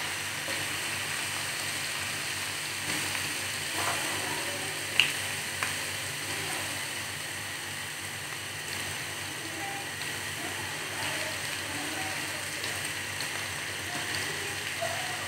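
Chopped garlic sizzling steadily in hot oil in a kadhai (wok) as it is stirred with a wooden spatula. Two sharp knocks come about five seconds in, the first louder.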